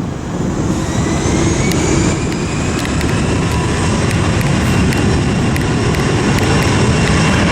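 Airliner's jet engines spooling up to takeoff power for the departure roll. A loud rumble carries a high whine that rises over the first two seconds or so and then holds steady.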